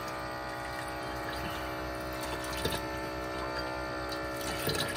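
Small rechargeable electric water pump running with a steady whine while water runs from the tap into a small sink.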